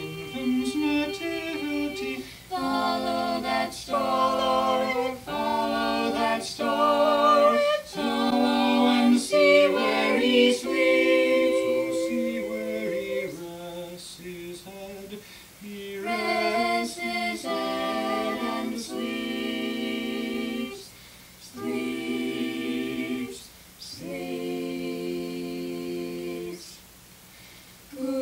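Mixed four-voice a cappella quartet (soprano, alto, tenor and bass) singing a hymn-like lullaby in harmony, in sung phrases separated by short breaks.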